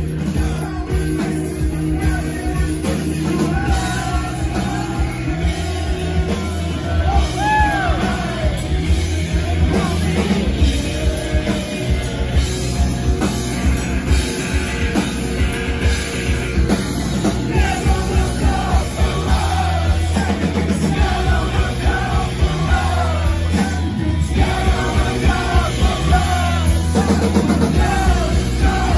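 Live rock band playing: electric guitar, electric bass and drum kit with a steady beat, and a singer's vocals over them, heard close to the stage from the crowd.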